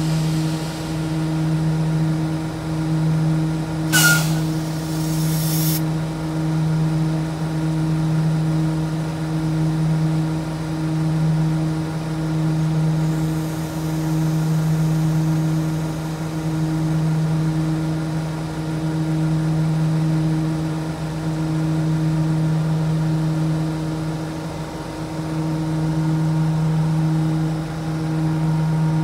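Sydney Trains double-deck electric train standing with its on-board equipment humming steadily on a few fixed tones. About four seconds in there is a sharp hiss of released compressed air lasting about two seconds.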